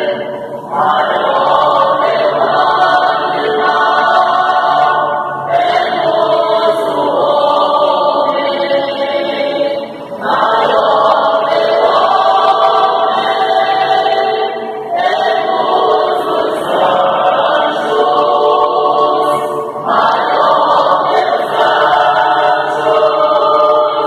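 Mixed church choir of men and women singing a hymn in Portuguese, in phrases of about five seconds with short breaks for breath between them.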